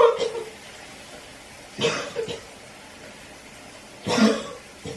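A young woman coughing in three fits about two seconds apart, each a harsh cough followed by a shorter one. It is put-on coughing, staged to look like coughing up blood.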